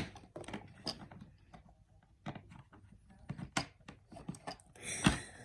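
LEGO plastic pieces being handled and sorted: irregular small clicks and clacks, with a heavier knock about five seconds in.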